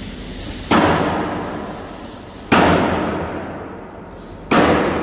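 Three heavy hammer blows on metal, about two seconds apart, each ringing out slowly after the strike.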